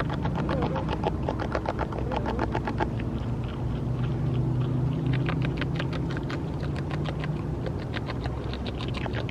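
North American beaver chewing plant food close up: rapid, irregular crunching clicks, over a steady low hum.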